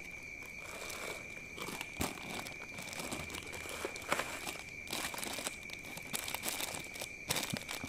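Clear plastic zip-lock bags of action-camera mounts crinkling and rustling as they are handled, with a few light clicks of the plastic parts knocking together.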